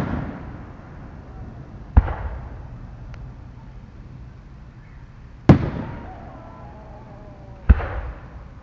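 Aerial fireworks shells bursting: three loud booms, at about two, five and a half and nearly eight seconds in, each trailing off in a rolling echo.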